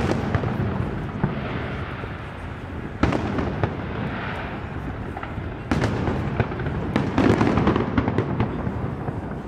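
Fireworks going off: a sharp bang at the start and another about three seconds in, then a run of bangs with crackling from about six seconds on, over a continuous din.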